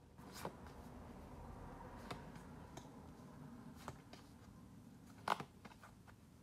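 A stack of Polaroid-style photo cards handled and flipped through: soft paper slides and flicks as cards are moved one by one, with one sharper snap of card on card about five seconds in.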